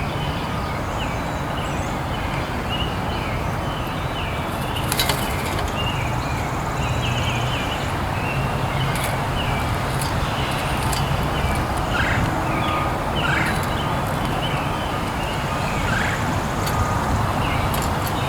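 Birds chirping: many short, high calls scattered through, over a steady low rumble of background noise.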